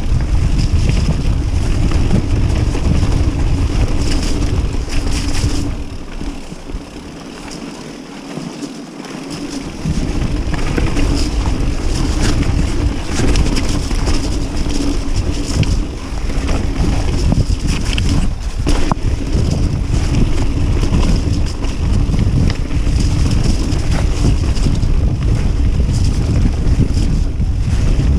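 Wind buffeting the action camera's microphone during a fast mountain bike descent: a loud low rumble, with the tyres rolling over dirt and stones and short rattles and clicks from the bike. The wind rumble eases for a few seconds about six seconds in, then returns.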